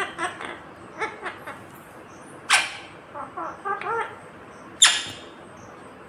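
Indian ringneck parakeet making short, chattering, speech-like calls in quick clusters, with two loud harsh bursts, one about midway and one near the end.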